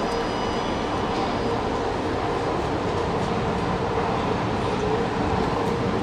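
Steady rumble and hum of an Otis Gen2 lift car travelling down its shaft.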